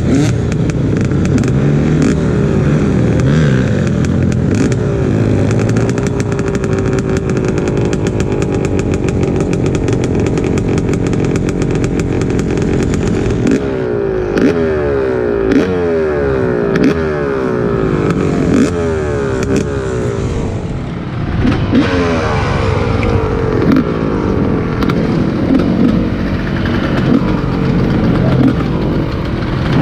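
A vehicle engine running hard under load. In the second half its pitch climbs and drops back again and again as it accelerates and changes gear. Steady wind and road noise and scattered clicks sit behind it.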